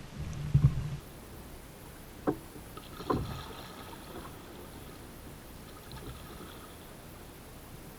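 Kayak being paddled: water noise from the paddle strokes, with two sharp knocks a little after two and three seconds in.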